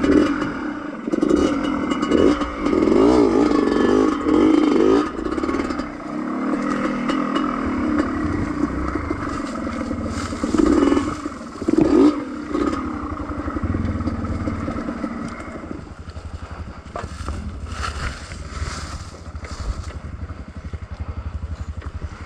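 Dirt bike engine running and revving, with clatter and scraping from the bike over rough ground; the pitch wavers with loud swells, then drops to a lower, steadier run about sixteen seconds in.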